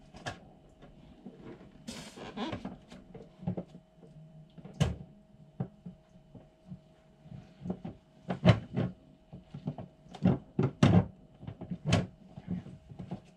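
Hard plastic knocks and clatters of an egg incubator being handled, as eggs are set back into its tray and the lid is moved, coming thickest in the second half. A faint steady hum runs underneath.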